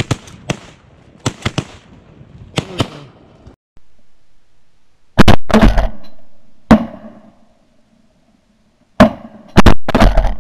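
Duck hunters' shotguns firing: a quick volley of about seven shots from more than one gun in the first three seconds. After a short break come about five much louder, close shotgun blasts, each with a short ringing tail.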